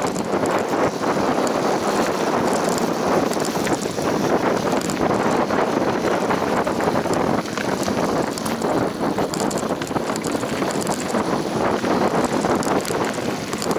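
Bicycle being ridden over rough ground: a steady rattling rumble of tyres and frame with many small knocks, and wind buffeting the microphone.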